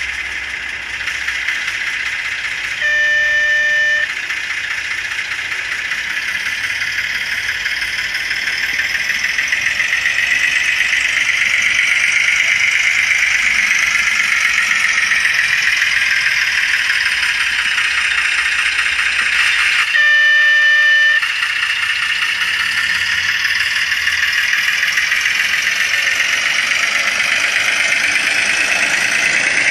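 M-tronic diesel sound card in a gauge 1 Märklin Köf model locomotive, playing a small diesel engine running through the model's small 8-ohm speaker. Two short horn blasts of about a second each sound about 3 seconds and about 20 seconds in.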